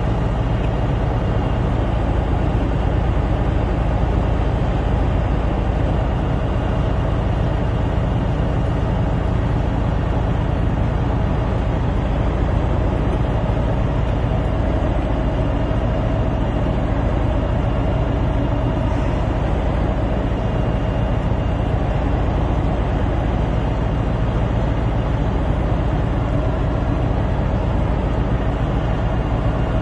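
Heavy machinery running with a steady, deep rumble that stays even throughout.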